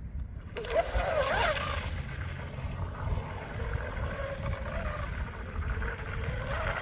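RC tunnel-hull boat's electric motor and propeller whining, throttling up about half a second in with a rising, wavering pitch, then running at a steadier high whine as the boat speeds away. A low wind rumble on the microphone sits underneath.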